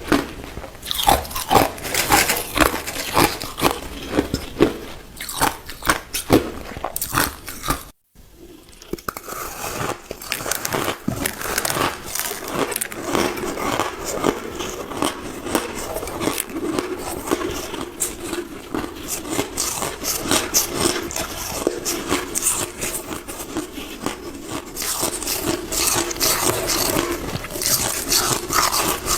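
Crushed ice being bitten and chewed close to the microphone: a dense, irregular run of crunches, broken by a momentary silence about eight seconds in.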